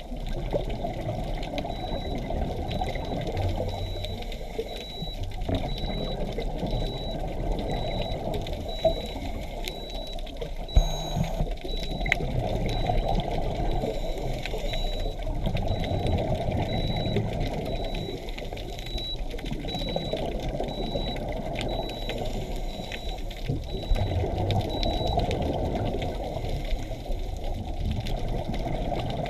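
Scuba diver breathing through a regulator underwater, the exhaled bubbles gurgling and rushing in swells every few seconds, heard muffled through the camera's waterproof housing. A faint high beep repeats about one and a half times a second through most of it, stopping near the end.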